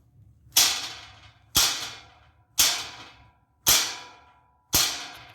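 Bicycle tire pump being worked in five even strokes about a second apart, each a sudden hissing whoosh of air that trails off.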